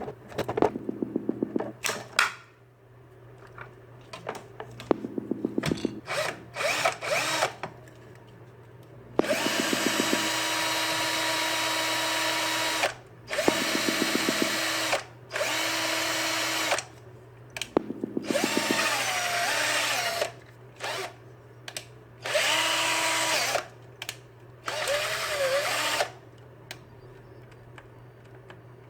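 Cordless drill converted to run from 127 V AC mains, its motor run in a series of spurts of one to four seconds. The speed dips and rises within some runs, and several runs begin with a rapid clicking. A steady low hum runs underneath.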